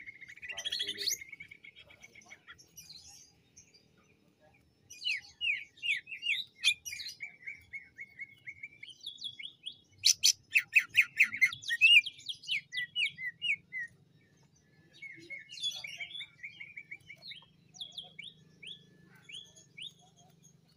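Male cucak ijo (green leafbird) singing a varied song of whistles, chirps and trills, with short pauses. The loudest part is a burst of fast repeated notes about ten seconds in.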